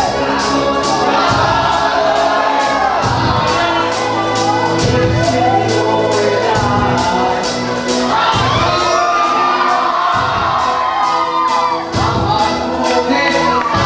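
Live rock band playing at full volume, drums keeping a steady beat under guitars, with a male lead singer and a crowd singing and shouting along.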